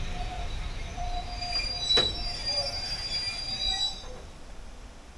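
Train wheels squealing on the rails in several high, steady tones, with a sharp click about two seconds in; the squeal dies away about four seconds in.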